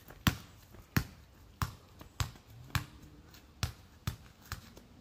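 Basketball bouncing on a concrete driveway as it is dribbled: sharp bounces about every half second that grow fainter as the ball moves away.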